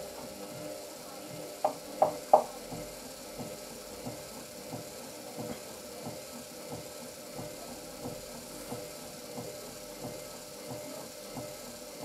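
Hoover VisionDynamic front-loading washing machine tumbling its load in water on a rinse: a steady motor hum with soft repeated swishes as the drum turns. Three sharp knocks come close together about two seconds in.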